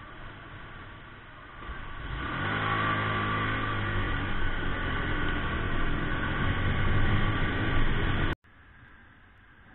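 Motorcycle engine pulling away and accelerating: about two seconds in it gets louder and its pitch climbs a little, then holds steady as the bike rides on. It cuts off abruptly near the end, leaving only a faint background hum.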